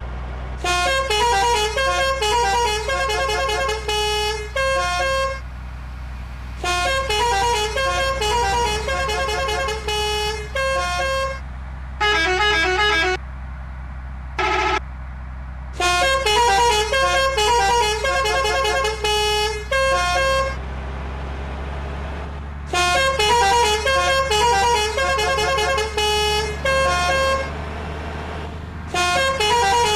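Bus 'telolet' musical horn playing quick melodies of stepped notes in about six bursts with short pauses between them, and one single held note about halfway through. A steady low engine hum runs underneath.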